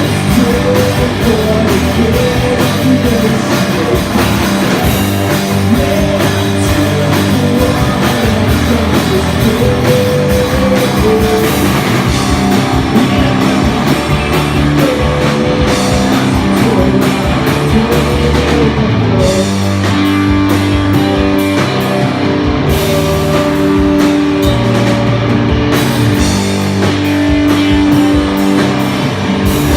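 Live rock band playing a song at full volume, with guitar and drum kit and singing over it.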